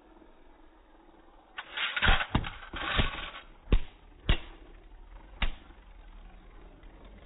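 Beyblade spinning tops clattering in a plastic stadium. A rasping scrape begins about a second and a half in, then about six sharp clacks follow over the next few seconds as the tops strike each other and the stadium.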